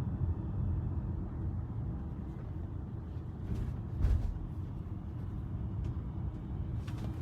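Steady low road and tyre rumble of a moving 2023 Tesla Model Y, an electric car with no engine note, with one short thump about four seconds in.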